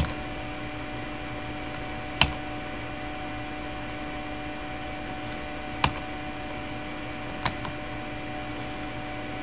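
Steady electrical hum and hiss of a recording setup, broken by three short sharp clicks about two, six and seven and a half seconds in, the first the loudest.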